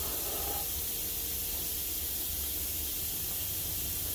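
Pneumatic random-orbital sander running with a steady hiss of exhaust air while scuffing the brass coating off a stove door frame.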